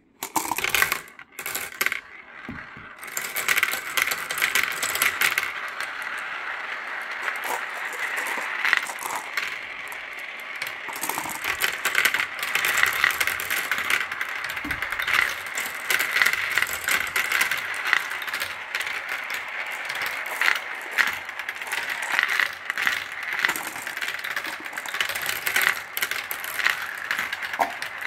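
Glass marbles pouring into a plastic marble run and rolling and clattering down its tracks, funnels, paddle wheel and spiral bowl: a dense, continuous stream of clicks and clacks. It starts suddenly with a few loud clacks, then runs on as steady clatter.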